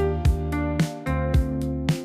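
Background music with a steady beat, its notes struck about twice a second.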